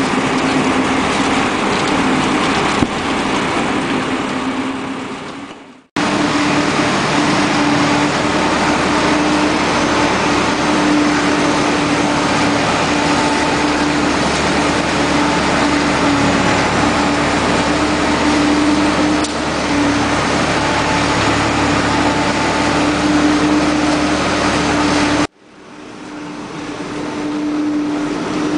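A Renault 103-54 tractor running steadily as it drives a Keenan Easi-feeder 115 diet wagon, whose paddles are mixing silage, with a steady hum over the machinery noise. The sound fades out about six seconds in and cuts back in sharply. It drops out again near the end and fades back up.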